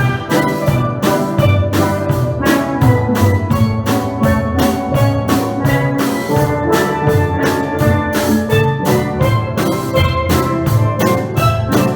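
Steel pan band playing a tune, the pans ringing out many struck notes over drums keeping a steady beat.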